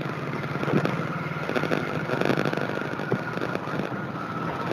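Steady background noise with a faint, steady high whine, picked up through an open microphone on a video call.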